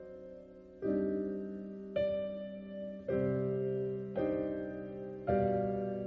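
Slow, gentle piano music: chords struck about once a second, five in all, each ringing and fading before the next.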